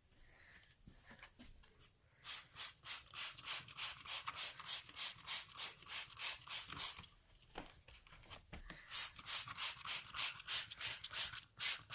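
Trigger spray bottle of Clorox Pet Urine Remover squeezed rapidly onto carpet stains, each squeeze a short hiss, about four a second. Two runs of spraying with a short pause around the middle.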